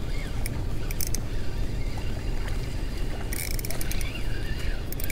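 Spinning reel being cranked to retrieve a small hooked fish, a fast fine rattle that starts about three seconds in, over a steady low rumble.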